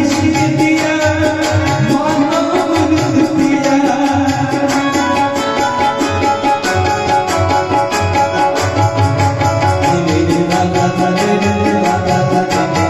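Bhajan music: a hand drum keeps a steady rhythm with regular bright cymbal strokes, under a sustained melodic line.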